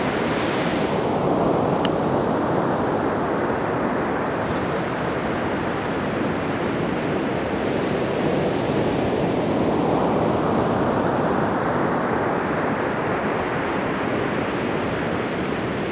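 Ocean surf breaking and washing up on a sandy beach: a steady rush that eases after the first second and swells again through the second half.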